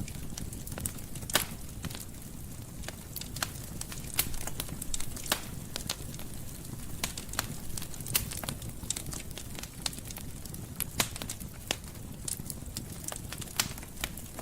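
Wood fire burning in a fireplace: a steady low rumble of flames with irregular sharp crackles and pops.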